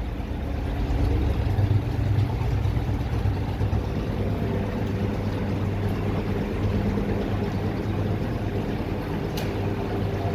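Several computer keyboards being typed on at once, a continuous dense clatter that starts up as the typing test begins, over a steady low hum.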